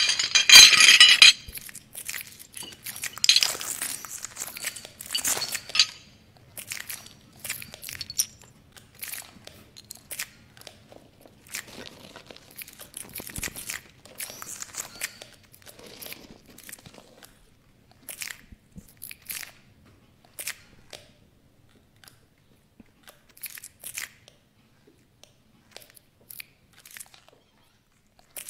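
Close, irregular crunching and crackling noises: a loud dense burst at the start and another a few seconds in, then scattered short clicks and crackles that thin out toward the end.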